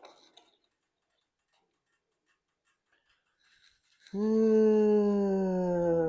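A long drawn-out vocal sound, one held note that slowly falls in pitch for about three seconds, starting about four seconds in.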